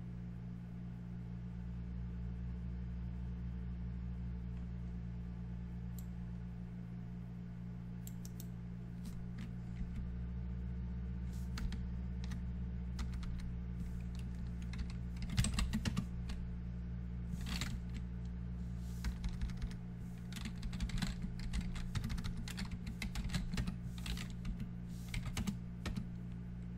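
Typing on a computer keyboard: a few scattered keystrokes at first, then quick runs of keystrokes in the second half, over a steady low hum.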